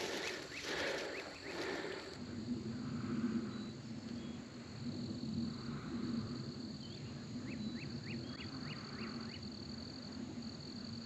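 Outdoor evening ambience of insects trilling steadily, with a bird's quick run of about six short rising chirps a little past the middle. A few scuffing noises come in the first couple of seconds.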